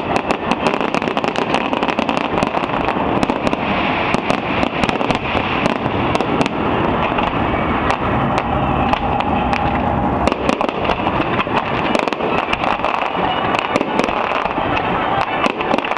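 Fireworks display: a dense, continuous barrage of bangs and crackles, many each second, over a steady rumbling wash of noise.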